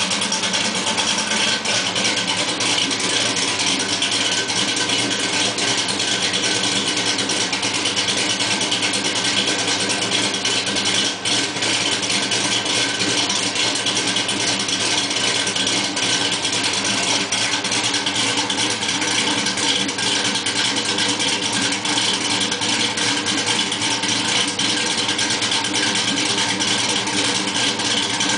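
LS-swapped 1966 Canso's V8 idling steadily through its dual exhaust.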